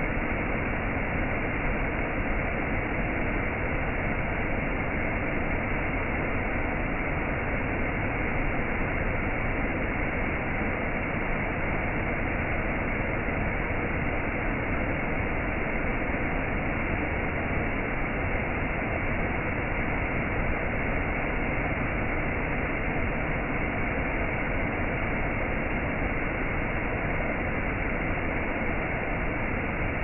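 Whitewater cascade over rock, rushing steadily and evenly. It sounds dull and muffled, with no high hiss.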